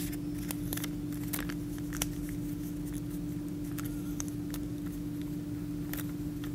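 Origami paper being handled and folded by hand: scattered light crackles and ticks of the paper creasing, over a steady low hum.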